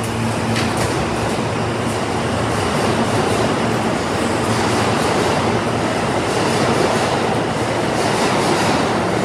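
New York City subway train running through an underground station: a loud, steady rumble and rattle of steel wheels on rail, growing slightly louder.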